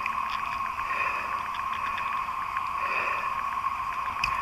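Chorus of cicadas: a steady, high, even drone in two pitches, with faint rapid ticking running through it.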